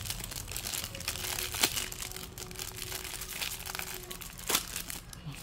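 Thin clear plastic packaging bag crinkling and crackling as it is handled and pulled open by hand, with two sharper, louder crackles, about one and a half and four and a half seconds in.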